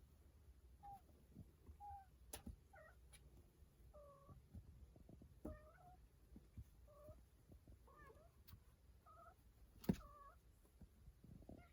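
A cat giving about ten short, faint meows, spaced a second or so apart, with a couple of sharp knocks, the louder one near the end.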